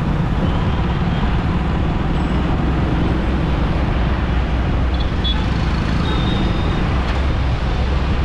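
Steady city traffic and road noise from a drive, dominated by a constant low rumble of engine and tyres.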